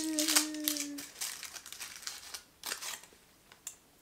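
Crinkling and rustling of a Ferrero Rocher's plastic box and gold foil wrapper being opened, in irregular bursts that thin out near the end. A woman's held hum runs under the first second.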